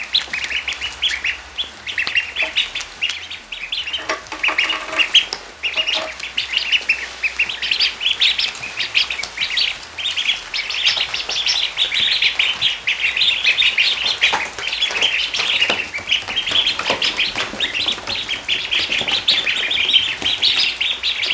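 Many small birds peeping at once in a dense, continuous chorus of short high peeps, with a few lower calls about four to six seconds in.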